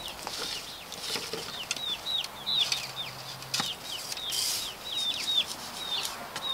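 Young chickens cheeping in quick, short, falling peeps, with wings flapping and a few brief rustles among them.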